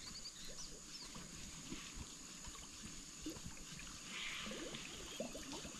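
Faint open-air ambience on a small boat on a lake: water lapping softly with small knocks and ticks over a steady high hiss.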